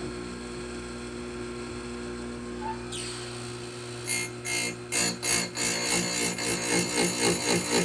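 Oregon bench chain grinder's motor running with a steady hum; about four seconds in, the grinding stone starts meeting the chain's teeth in quick, even rasping strokes, about three a second.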